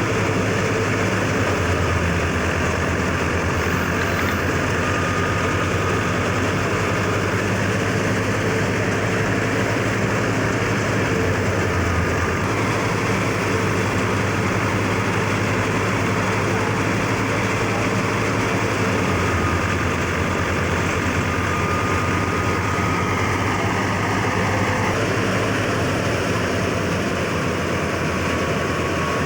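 Tractor-driven wheat thresher running steadily: the tractor engine's low, even hum under the thresher's dense whirring and rushing noise of straw and grain passing through the machine.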